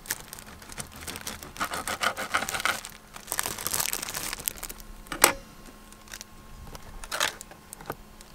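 Clear plastic bread bag crinkling as slices of sliced white bread are pulled out of it, with a sharp knock about five seconds in and a smaller one near the end.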